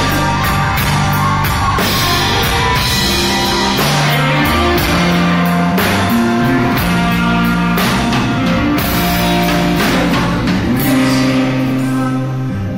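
Live rock band playing at full volume: electric bass, electric guitar and drum kit, with steady drum hits. The drums drop away near the end, leaving bass and guitar ringing.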